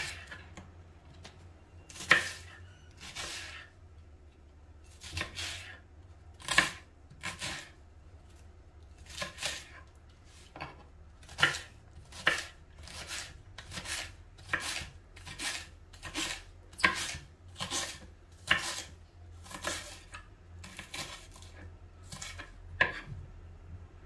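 Kitchen knife cutting a leek on a cutting board: a long series of single sharp knocks of the blade on the board. They come sparsely at first, then at a steady pace of a little more than one a second.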